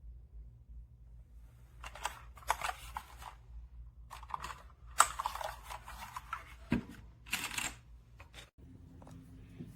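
Handling noises: several short scrapes, rustles and clicks in three clusters, with the sharpest click about five seconds in, over a steady low hum.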